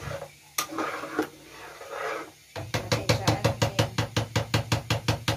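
Metal spatula stirring and scraping thick mung bean stew in a cooking pan. For about the last three seconds it gives way to a fast, even run of sharp clicks, about six a second.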